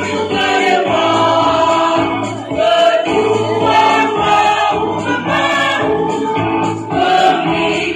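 Mixed choir of men's and women's voices singing in harmony, several parts sounding at once and moving from note to note without a break.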